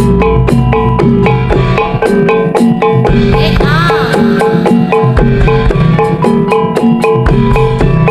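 Loud Javanese gamelan accompaniment for a jaranan dance, amplified through a sound system. Struck metal keyed percussion plays a quick, even rhythm over drums, and a short wavering high note comes in about four seconds in.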